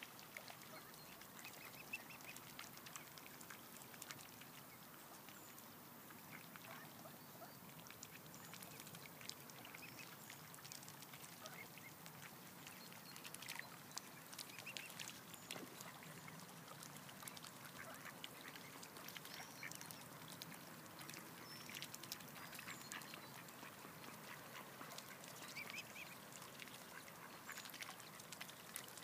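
Faint, scattered soft quacks and calls from mallard ducks and mute swans with cygnets feeding at the water's surface, with many small clicks and splashes from their bills among floating salad greens.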